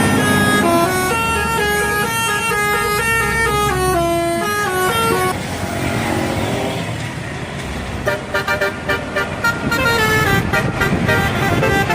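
Bus telolet horn playing a tune of quick stepped notes that runs downward over the first five seconds. After a break a second telolet horn starts about eight seconds in, stuttering out rapid repeated notes.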